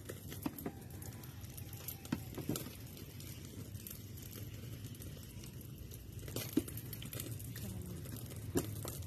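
A few light knocks and taps of a serrated knife against a plate as a block of quick-melt cheese is sliced, spaced irregularly over a low steady hum.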